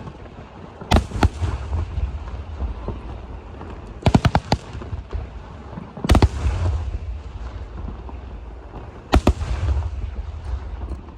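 Aerial firework shells bursting overhead: clusters of two or three sharp bangs every two to three seconds, each followed by a low rumble and crackle.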